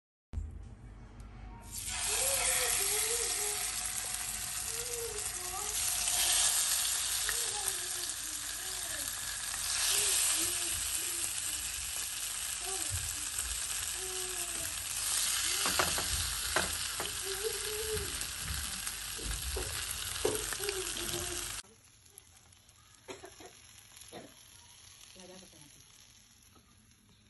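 Masala-coated fish shallow-frying in oil in a nonstick pan: a loud, steady sizzle with scattered pops that comes up about two seconds in, then drops suddenly well after halfway to a much quieter sizzle.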